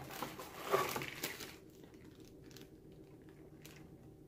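Plastic zip-lock parts bags crinkling and rustling as they are lifted out of a cardboard box, busiest in the first second and a half, then a few faint rustles.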